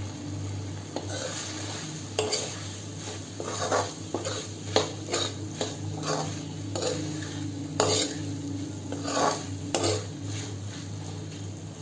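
A spoon stirring and scraping okra and masala around a metal kadhai, in a string of irregular scrapes and knocks against the pan, over a low steady hum.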